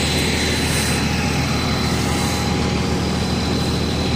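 Crawler bulldozer's diesel engine running steadily: a low, even drone with no change in speed.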